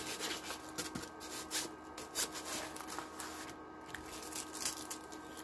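Rustling and crinkling as a diamond painting canvas is handled and smoothed flat, with a few small sharper clicks among the irregular rustles.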